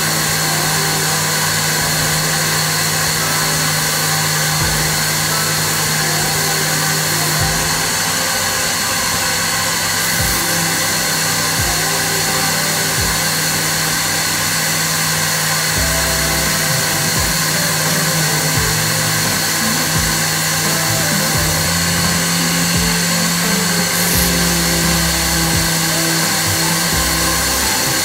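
CNC gantry router milling solid wood: the spindle runs steadily through the cut, over a low hum that changes pitch a few times as the machine moves.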